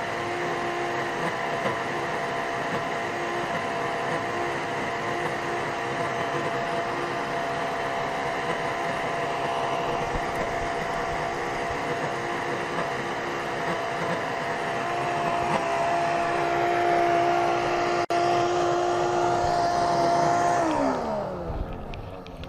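Old wet/dry shop vac motor running with a steady whine and rushing air, overheating as it wears out. About 21 seconds in its pitch drops and the sound fades as the motor winds down.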